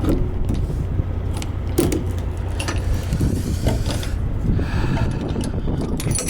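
Steady low rumble with scattered light metallic clicks and clinks, as of small hardware or keys being handled.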